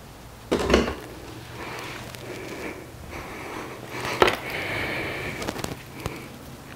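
A man breathing hard and straining as he lifts a heavy loaded fridge slide on a hanging scale: sharp breaths and strained, breathy noises. Two sharp knocks, about a second in and about four seconds in, and a few small clicks near the end.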